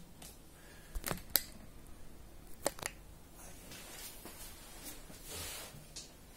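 A few light, sharp clicks and taps as a paintbrush and a small cup of primer are handled, then a brief soft rustle near the end as the brush meets the cloth.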